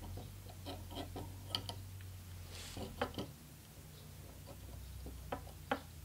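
Faint, scattered light clicks and taps from solder wire and a soldering iron being worked against the jack's lugs in a metal helping-hands clamp, over a low steady hum.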